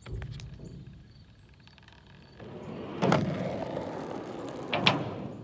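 A knock at the start, then from about halfway skateboard wheels rolling with a rough rumble over the ramp and asphalt, with two sharper knocks from the board.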